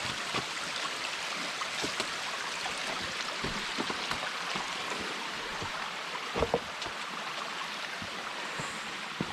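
Steady rush of a small mountain stream, with scattered scuffs and knocks of footsteps on rock; a pair of louder knocks comes about six and a half seconds in.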